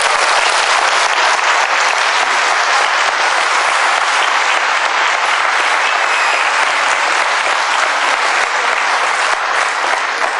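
Audience applauding steadily in a lecture hall.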